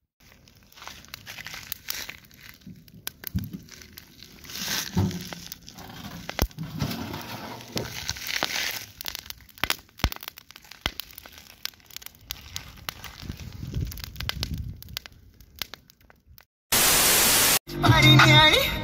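Irregular crackling, clicking and rustling at a modest level for most of the time. Near the end comes a short, loud burst of even hiss, and music starts just after it.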